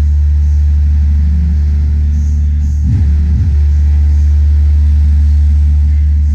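A car-audio trio box in the trunk of a VW Polo sedan (subwoofer plus midrange and tweeter) playing music at high volume, heard from behind the car with the trunk lid closed. Deep, steady bass dominates, with little above it.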